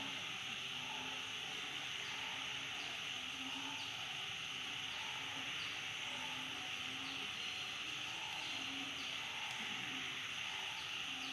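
Outdoor ambience of insects droning steadily at a high pitch, with faint short chirps repeating about once a second.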